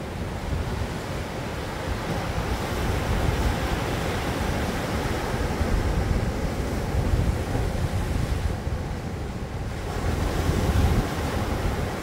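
Sea waves breaking and washing up onto a rocky beach, the surf swelling and easing every few seconds.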